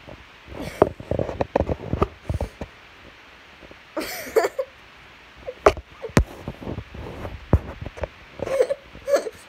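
An upset cat hissing and grumbling in short bursts, with a few sharp clicks in between.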